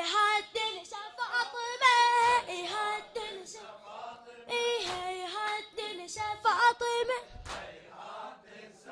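A boy reciter chanting an Arabic latmiyya lament unaccompanied into a microphone, a high voice in long, wavering, melismatic phrases, with a few low thumps underneath in the second half.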